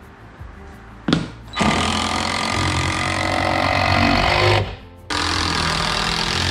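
A handheld power tool runs in two loud stretches of about three seconds and a second and a half, with a short pause between, over background music. A sharp click comes about a second in, just before the first run.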